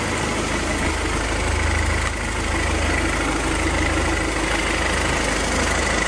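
Webasto diesel parking heater running on its first start after being cleaned and reassembled: a steady combustion rumble with a thin, high fan whine over it.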